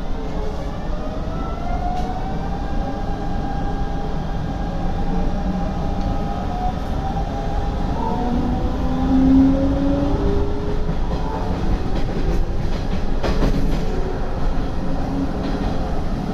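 Hanshin 5500-series electric train (set 5511F) running on the track: a steady wheel-and-rail rumble with the traction motors' whine gliding up and down in pitch as the train changes speed, and a few brief clicks late on.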